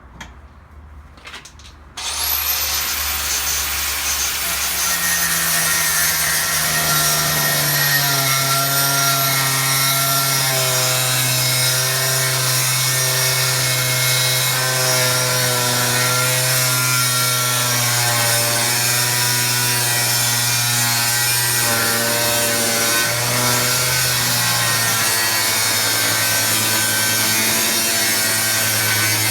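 A small Stayer angle grinder fitted with a 3 mm Karbosan cutting disc is switched on about two seconds in and whines up to speed. It then cuts steadily through a hardened 52100 high-carbon steel knife tang, its pitch wavering as the disc bites.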